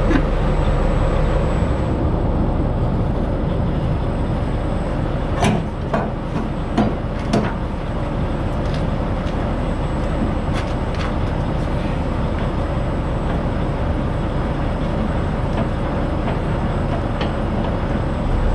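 Semi truck's diesel engine idling steadily. A few sharp clicks and knocks come about five to seven seconds in, with a couple of fainter ones later.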